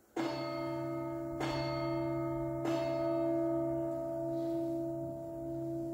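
Altar bell struck three times, a little over a second apart, each strike ringing on with a long steady tone: the consecration bell marking the elevation of the chalice at Mass.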